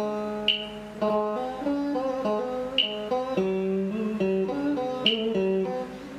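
Electric guitar played slowly as a single-note melody. Many notes slide or waver in pitch. A sharp click sounds about every two and a quarter seconds, three times.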